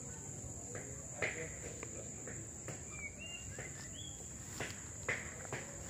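Insects calling in a steady high-pitched drone, with scattered soft clicks and rustles and a few short high chirps around the middle.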